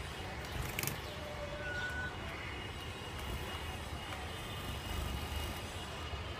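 Steady low background rumble, with a sharp click about a second in and a few faint brief whistle-like notes soon after.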